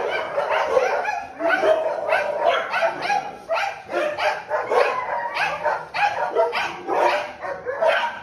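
Kennel dogs barking over and over, two or three barks a second without a break.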